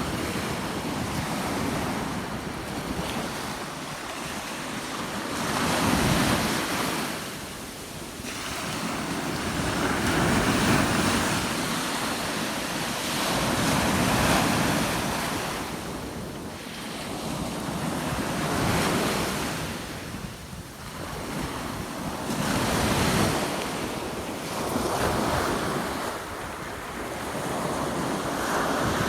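Storm-whipped surf of the Sea of Azov breaking on the shore, the roar of the waves swelling and ebbing every few seconds, with wind buffeting the microphone.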